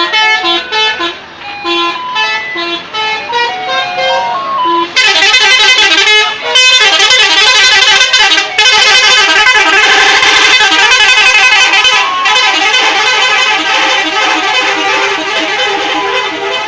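Telolet bus horns, multi-tone musical air horns, playing a tune of short separate notes. About five seconds in they get much louder, with many tones sounding together.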